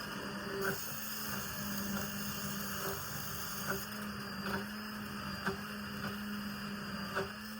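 Steady low hum with about nine light taps or knocks at uneven intervals, roughly one a second.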